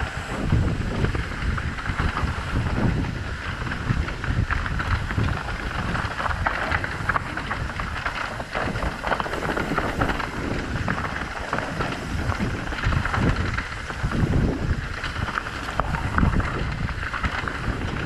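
Wind buffeting the microphone, with a continuous rumble and surging low gusts over a steady rushing haze and scattered small ticks, as from riding along at speed.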